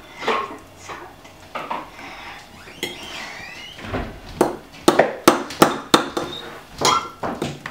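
Metal fork mashing ripe bananas in a ceramic bowl, its tines knocking and clinking against the bowl. From about five seconds in the clinks come sharp and quick, about three a second.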